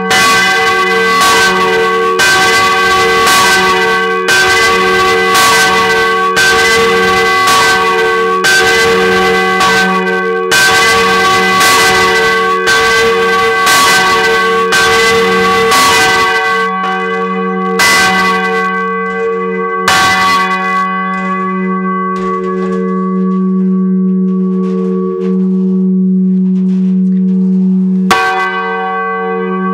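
The Maria bell, a 785 kg bronze church bell in G-flat (ges') cast by F.W. Schilling of Heidelberg in 1950, swinging for the noon ringing with its clapper striking about once a second. After about 17 seconds the strikes thin out and stop, and the bell's deep hum rings on, with one more strike near the end.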